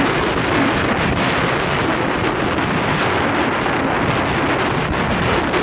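Strong, gusty wind buffeting the microphone: a loud, steady rushing roar that drowns out everything else.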